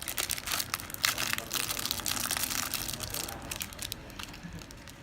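Packaging crinkling and crackling as it is handled and opened, a dense run of crackles that thins out over the last two seconds.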